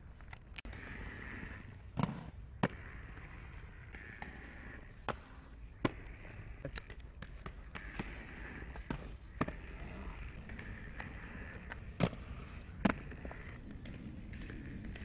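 Inline skate wheels rolling on asphalt, broken by a string of sharp clacks as the skates hit the ground, about seven in all, the loudest about two seconds in and around twelve seconds.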